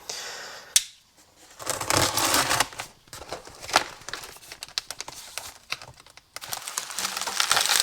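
Packing material in a parts box crinkling and rustling as it is handled and pulled open, in irregular bursts. Scattered sharp clicks and knocks come through, one sharp click about three-quarters of a second in.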